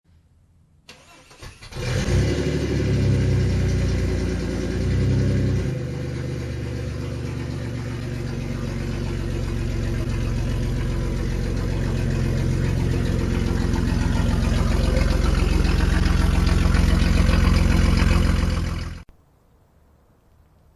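Car engine starting up and revving, then running steadily and growing gradually louder before cutting off abruptly near the end.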